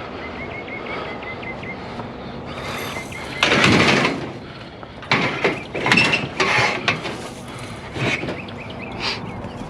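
Metal chair frames being handled, with loud rattling and scraping around three seconds in, then a run of clanks and knocks. A bird chirps faintly at the start.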